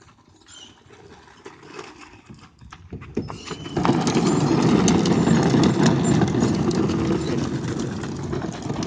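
Kid's ride-on toy rolling, a loud rattling rumble with many small clicks that sets in about four seconds in.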